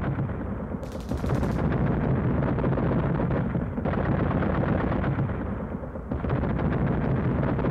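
War-film battle sound effects: continuous rapid gunfire like machine guns, with a burst of sharper crackling about a second in.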